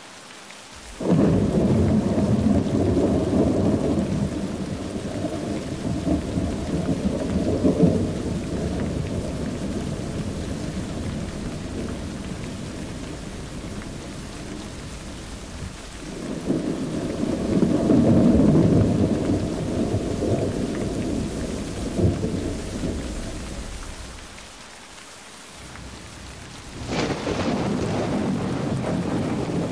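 Thunderstorm: two long rolls of thunder in heavy rain, the first breaking about a second in and fading slowly, the second swelling around the middle and dying away. Near the end a steadier hiss of rain takes over.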